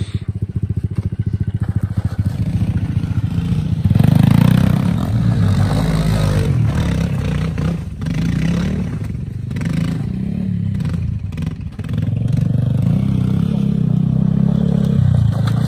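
Pit bike engine idling with a quick, even pulse, then revved hard about four seconds in and held at high revs, the throttle opening and closing, with brief drops about eight and twelve seconds in.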